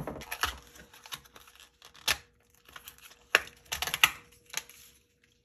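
Small plastic blister pack of wire nails being handled and opened: crinkling plastic and a scattering of sharp clicks.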